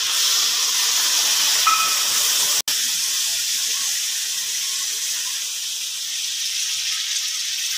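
Hot, oily kadai of fried chicken, potatoes and spices hissing and sizzling as warm water is poured in, a steady hiss of steam. It cuts out for an instant about two and a half seconds in.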